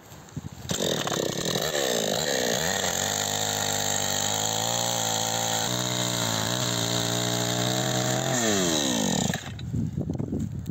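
Gasoline two-stroke chainsaw revving up about a second in and cross-cutting a pine log. Its engine note sinks as the chain bites into the wood, then holds steady under load while it cuts. Near the end the pitch falls away as the throttle is released.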